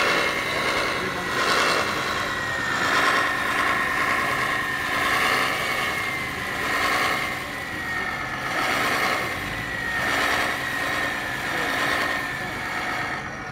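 Radio-controlled scale IFA W50 truck's electric drive whining as it crawls up a steep shale slope under load. The whine sags slowly in pitch several times, with a regular swelling and fading.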